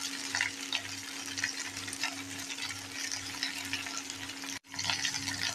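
Okra (ladies finger) pieces frying in oil in a nonstick pan, sizzling and crackling as a wooden spatula stirs and scrapes them, over a steady low hum. The sound cuts out for an instant about four and a half seconds in.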